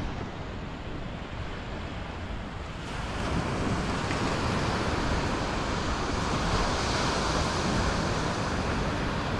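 Sea waves washing onto a beach, the surf swelling louder about three seconds in, with wind rumbling on the microphone.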